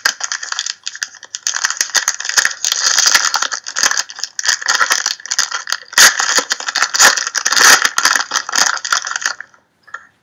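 Trading-card pack wrapper being torn open and crinkled by hand: a dense crackle of crumpling plastic foil that stops abruptly a little over nine seconds in.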